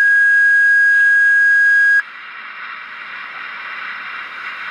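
Fire dispatch two-tone page over a radio: the long second tone holds steady at one high pitch, then cuts off abruptly about two seconds in, leaving the open channel's steady radio hiss. The tones alert the fire company to a dispatched call.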